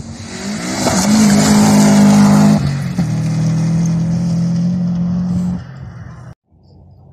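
Rally car at full throttle on a gravel stage, passing close by. The engine note climbs as it approaches and drops in pitch as it goes by about three seconds in, over a hiss of tyres on gravel. It then fades and cuts off suddenly near the end.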